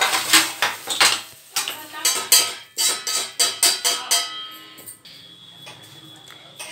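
A spoon stirring in a metal pot, knocking and scraping against its sides in a quick, irregular run of clinks, some of them ringing, for about four seconds, then much quieter.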